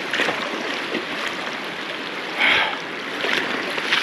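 Mountain trout stream running steadily, with a brief louder burst of noise about two and a half seconds in.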